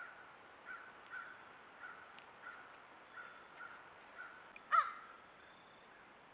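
Crows cawing in a series of short, evenly spaced calls, with one louder, closer caw near the five-second mark.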